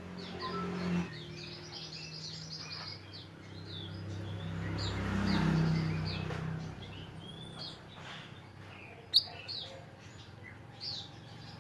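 A chorus of small songbirds giving many short, quick chirps and whistles, overlapping and unbroken, over a low hum that swells and fades around the middle. A single sharp click about nine seconds in.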